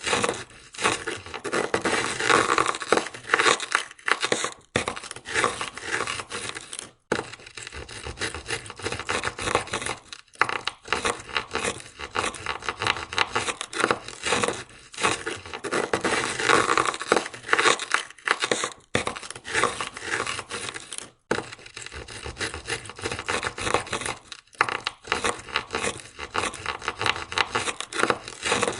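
Ice scraper scraping ice off a car window in rapid, rough repeated strokes, with a few short breaks between passes.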